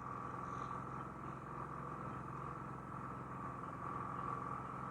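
Champion 4500-watt dual-fuel inverter generator running with no load, a quiet steady hum with a constant higher whine, heard from about 23 feet.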